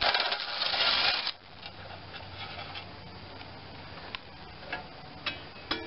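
Cordless drill spinning a socket on an extension, backing a heat-shield bolt out of the engine for about a second, then a few light clicks and rattles of loose metal parts.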